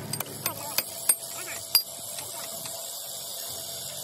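About five sharp metal clinks of a hand tool against the steel hub of a bulldozer's track idler, all in the first two seconds, the loudest just after one second and just before two seconds.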